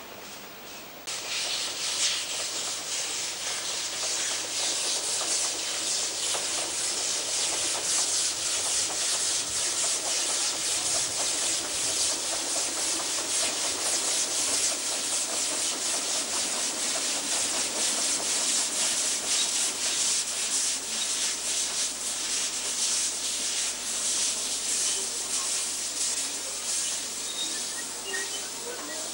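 Half-size replica of the K-1 Garratt steam locomotive working past on 15-inch gauge track: a steady rushing hiss of steam exhaust with a fast flutter. It starts suddenly about a second in and eases slightly near the end.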